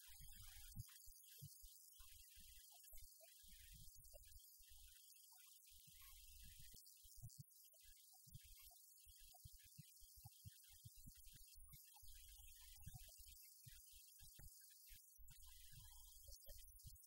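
Near silence: a faint low hum with hiss.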